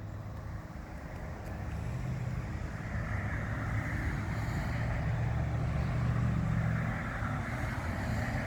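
Road traffic: a motor vehicle's engine and tyre noise growing louder over the first few seconds, then holding steady.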